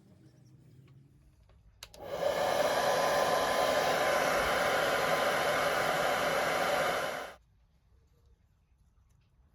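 Handheld hair dryer switched on with a click about two seconds in, blowing steadily for about five seconds, then switched off abruptly.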